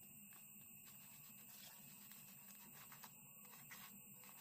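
Near silence: a faint steady hum and hiss, with a few faint ticks in the second half.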